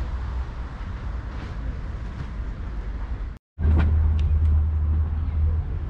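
Steady low background rumble with faint hiss above it; the audio drops out to silence for a moment about three and a half seconds in, then the rumble comes back a little louder.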